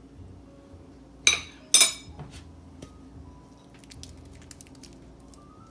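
A utensil knocked twice sharply against a mixing bowl about a second in, followed by a lighter click and then a run of small clinks and scrapes as the last of the mixture is cleaned out of the bowl.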